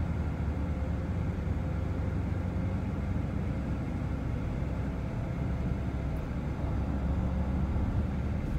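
Steady low rumble of a Chevrolet car on the road, heard from inside the cabin.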